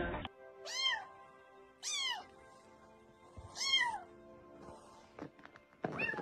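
A cat meowing three times, one to two seconds apart, each meow rising and then falling in pitch, with another shorter call near the end.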